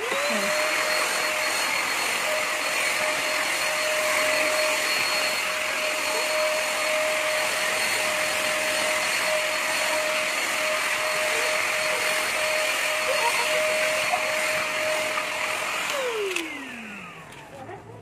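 MAXHEALTH vacuum cleaner switched on, its motor spinning up at once to a steady whine with rushing air as the floor nozzle sweeps the tiled floor. About sixteen seconds in it is switched off and the motor winds down, its pitch falling.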